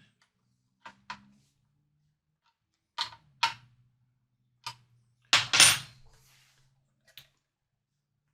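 A string of sharp metallic clicks and knocks, about seven in all, from a locking tuner and hand tools being handled and tightened down on a guitar headstock; the loudest is a double knock about five and a half seconds in.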